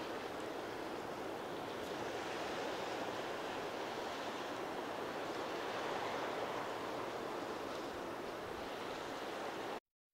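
Ocean surf washing on a rocky shore, a steady hiss of water that cuts off abruptly near the end.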